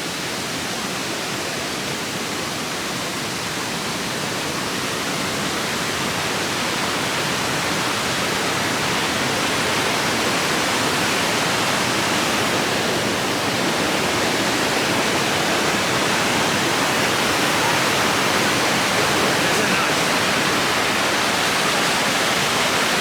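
Fast-flowing creek running high: a steady rush of water that grows gradually louder.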